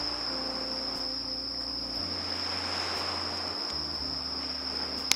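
Insects trilling as one steady, high-pitched drone, over soft background music of slow held low notes. A single sharp click near the end.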